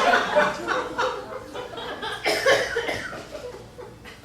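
Audience laughing, tapering off toward the end.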